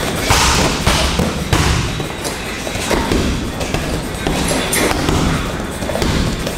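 Boxing gloves punching a hanging heavy bag: a series of sharp thuds at uneven intervals, about one a second, sometimes two close together.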